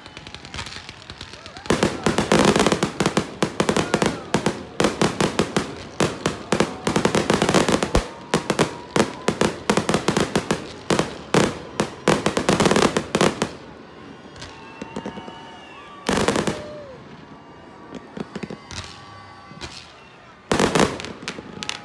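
Aerial fireworks display: a dense, rapid barrage of bangs and cracks from about two seconds in until about two-thirds of the way through. Then a few separate loud bursts follow, one of them near the end.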